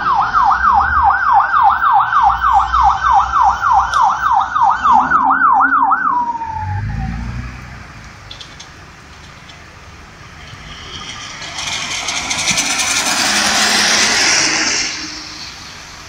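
Fire truck siren in a fast yelp, about three sweeps a second, which stops about six seconds in with a short falling glide. Later a vehicle passes on a wet road, its tyre hiss swelling and fading.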